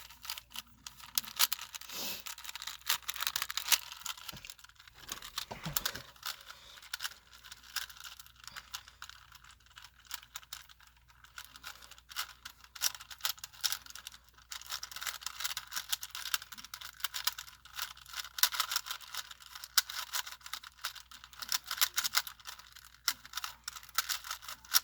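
Rubik's Cube being turned rapidly by hand: plastic layers clicking and rattling in quick runs with brief pauses.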